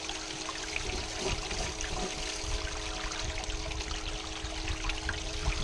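Water running steadily down a blue-mat gold sluice as material is washed through, with a steady hum underneath.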